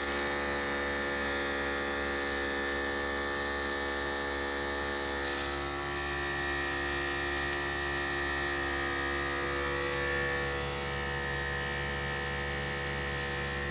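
Harbor Freight 12V 150 PSI portable air compressor running steadily with an even motor buzz, pumping up a tire that has just reached about 30 PSI.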